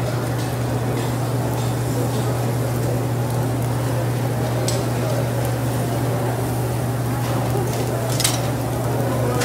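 Beef and chorizo sizzling on a charcoal grill, over a steady low hum and background chatter, with a couple of sharp clicks in the second half.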